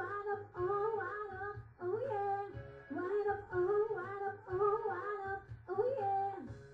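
Music: a female voice sings a melody in repeated phrases with rising swoops, over a steady beat and bass line.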